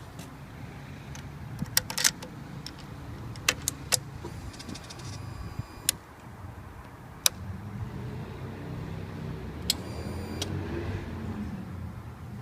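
Sharp clicks, several seconds apart, from a Kawasaki Ninja 300 as the starter button is pressed, with the engine neither cranking nor catching: the sign of a dead starter motor and a dead battery. A low hum with a wavering pitch swells in the second half.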